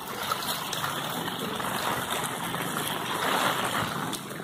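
Steady rain falling on a wet cobblestone street, an even wash of noise with a few faint ticks.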